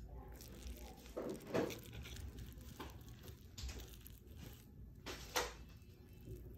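A fork cutting into soft steamed moi moi on a stainless steel plate, the fork clinking against the metal twice, about a second and a half in and again about five seconds in.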